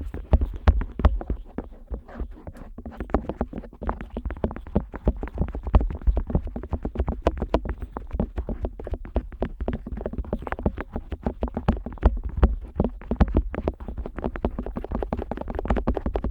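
An otoscope pressed, tapped and rubbed against the rubber outer ear of a Neumann KU100 dummy-head microphone, heard right at the ear as a dense, irregular run of clicks, soft taps and low thuds.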